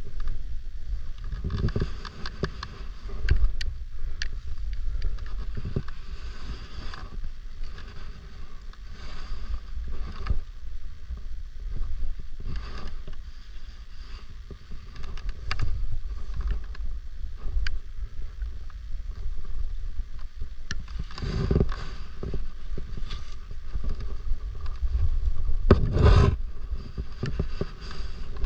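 Wind buffeting the camera microphone: a low, steady rumble under a hiss. Several short knocks and scrapes break through it, the two loudest near the end.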